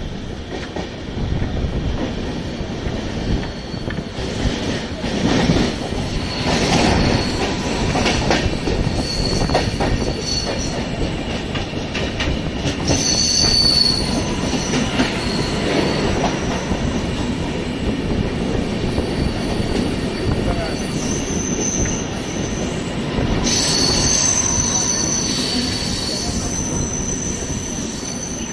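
LHB passenger coach running slowly over points and crossings: a steady rail rumble with clicks over the joints. Wheels squeal high on the curves about 13 seconds in and again from about 21 seconds in.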